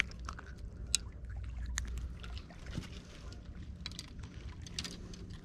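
Handling noise: scattered light clicks and knocks over a low, steady rumble.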